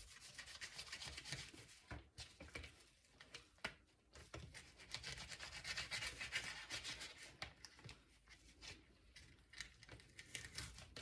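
Faint scraping and rasping of a dull fillet knife sawing through a perch along its ribs and backbone, with the blade rubbing on cardboard beneath. The strokes come in two spells, a short one at the start and a longer one in the middle, with a few small clicks between.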